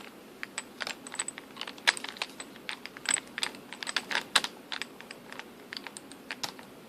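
Hand screwdriver driving a small screw into the plastic battery cover of a toy bubble gun: a run of irregular light clicks and ticks, several a second.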